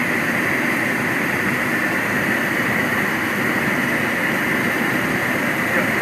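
Boeing 737-800's CFM56-7B turbofan engines running at takeoff thrust during the takeoff roll, heard on the flight deck: a steady, even noise with a high tone running through it and the rumble of the aircraft rolling down the runway.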